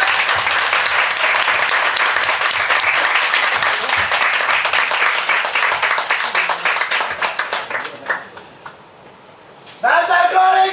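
Audience applauding, the clapping thinning out and dying away about eight seconds in. Near the end, the crowd of fans breaks into a loud unison chant.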